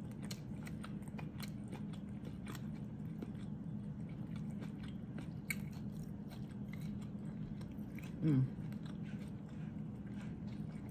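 A person chewing a mouthful of fried rice and sweet and sour chicken, with many small wet clicks of chewing. A steady low hum lies underneath, and a short falling vocal sound comes about eight seconds in.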